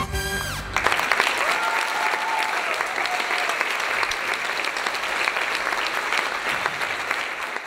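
Audience applauding after the music stops in the first second: dense clapping from a full hall that thins gradually toward the end.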